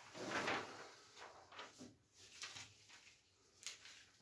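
Large sheets of paper pattern rustling and sliding against each other as they are lifted and laid one over another on a table, loudest in the first half second, then a few fainter rustles.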